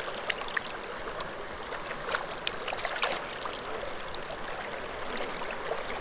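Shallow river current rushing steadily past a wading angler, with a few small splashes and clicks in the first half.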